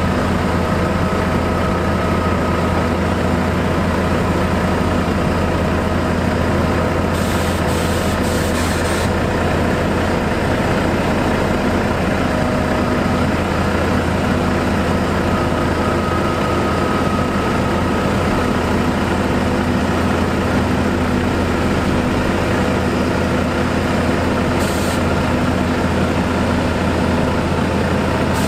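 Heavy diesel machinery of an asphalt paving crew running steadily, a constant low engine drone. Short hisses cut in about a quarter of the way in and again near the end.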